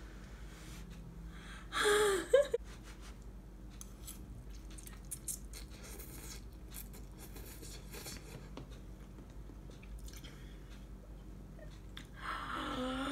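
A person slurping and chewing instant ramen noodles eaten off a fork, with faint scattered clicks. A short vocal sound comes about two seconds in, and her voice returns near the end.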